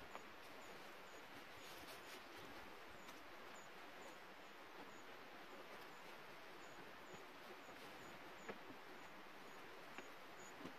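Near silence: faint outdoor ambience with a small high chirp repeating about twice a second and a few soft knocks.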